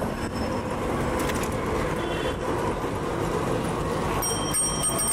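Busy street traffic noise heard from a moving vehicle, dense and steady. A thin, high ringing tone comes in near the end.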